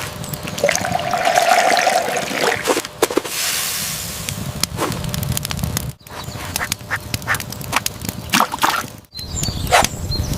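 Splashing water, with a short duck-like quacking call about a second in and scattered clicks and knocks. The sound drops out abruptly twice, about six and nine seconds in.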